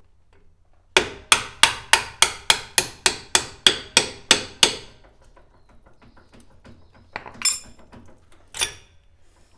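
Steel hammer blows driving the kingpin up out of an MG TC front stub axle. A quick run of about thirteen strikes, roughly three a second, is followed by two single blows near the end.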